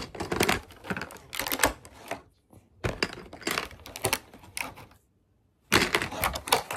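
Hard plastic toy tool-kit pieces and their moulded plastic packaging being handled close to the microphone: a busy run of clicks, rattles and clatters, with a short pause about five seconds in.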